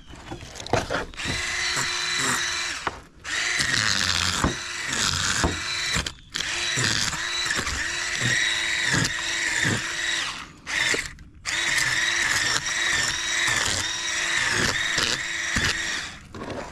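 Electric fish scaler running against the scales of a large sheepshead: a steady high whine with repeated clicks, cutting out briefly a few times as the scaler is lifted and repositioned.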